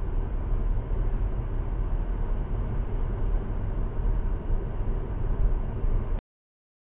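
Steady low rumble of a car driving, its engine and tyre noise heard inside the cabin through the dashcam's microphone. It cuts off suddenly to silence near the end.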